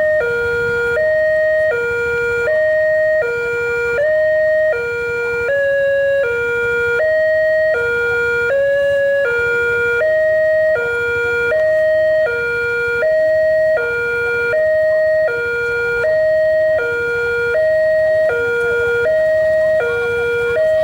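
Railway level-crossing warning siren sounding continuously, alternating between a high and a low tone, each held about half a second. Now and then a tone slides in or lands slightly off pitch, on a siren the uploader calls faulty.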